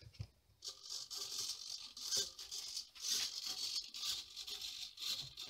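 9-gram micro servos whirring in a string of short runs as they drive the pushrods, swinging the rudder back and forth.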